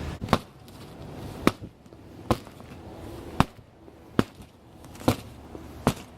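Footsteps crunching through an icy crust on snow left by freezing rain: about seven sharp cracks, roughly one a second, in a walking rhythm.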